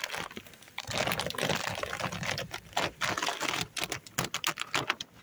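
Clear plastic sheet over a beehive's frames crinkling and crackling as it is peeled back off the wooden top bars, in a dense run of clicks that stops near the end.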